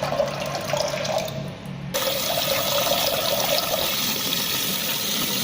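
Water running. About two seconds in it changes abruptly to a louder, fuller rush of water.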